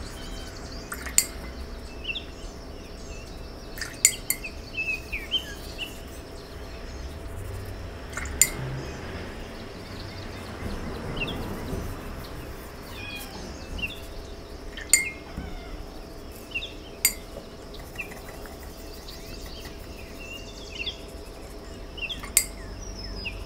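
Birds chirping on and off in the background, with about half a dozen sharp clicks scattered through.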